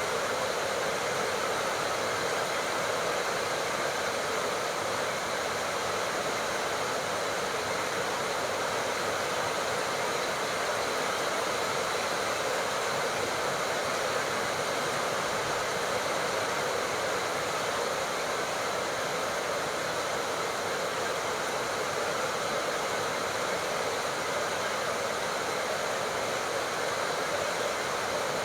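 Tropical rain falling steadily, a dense, even hiss with no separate drops or changes in strength.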